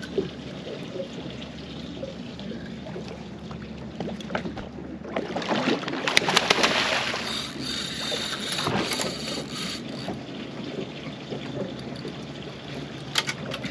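Steady wind and water noise on a boat at sea. A louder stretch of splashing and crackle comes from about five to ten seconds in.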